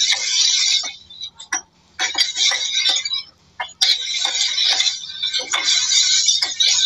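Chopped vegetables sizzling in hot oil in a kadai as they are tipped in and stirred, with short knocks of a metal spoon against the pan. The sizzle cuts out briefly twice.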